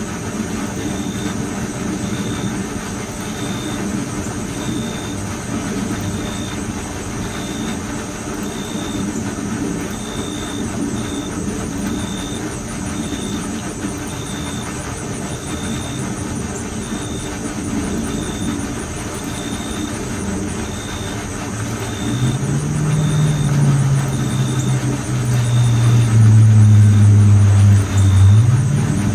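A steady mechanical hum with a short high chirp repeating a little more than once a second. About three-quarters of the way through, a louder engine drone comes in, wavers in pitch and is loudest near the end.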